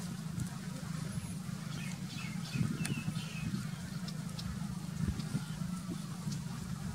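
Outdoor field ambience: a steady low hum with scattered short high chirps from small birds and a few faint ticks.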